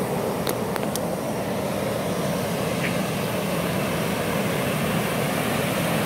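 Steady rush of river water spilling over a concrete weir, with three faint clicks within the first second.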